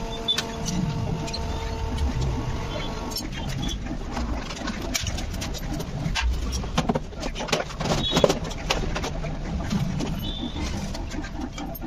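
Hand tools clicking, knocking and scraping against Honda Activa 6G black plastic body panels in irregular bursts. A steady hum underneath stops about three seconds in.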